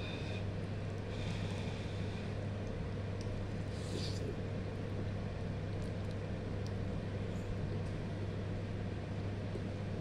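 Steady low hum over a faint hiss. About four seconds in there is a brief slurp of noodles, and a few faint clicks of a plastic fork against the cup are scattered through.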